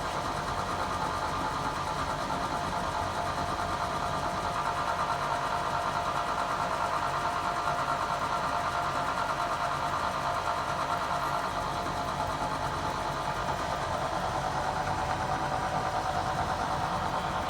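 A 1 hp Bridgeport J-series vertical milling machine running steadily, its quill power feed in reverse raising the quill, making a continuous mechanical hum and whine.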